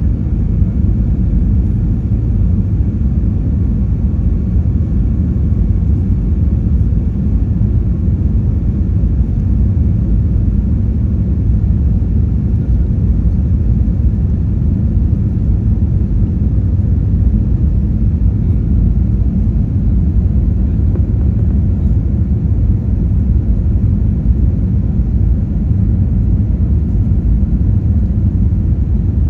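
Steady low rumble of an Airbus airliner heard from inside the cabin: engine and airflow noise, even and unchanging.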